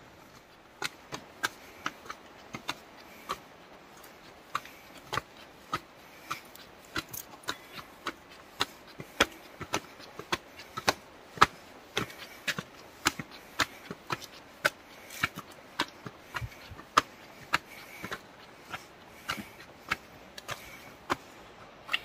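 Sharp clicking taps repeated irregularly, about two a second, over a faint steady background hiss.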